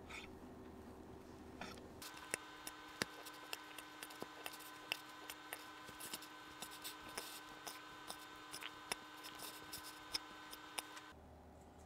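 Sharp, irregular clicks of kitchen cutting work, roughly two or three a second, starting about two seconds in and stopping shortly before the end, over a faint steady hum.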